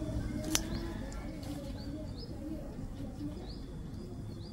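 Small bird giving a short, high chirp over and over, about once a second, over a steady low background rumble. A single sharp click sounds about half a second in.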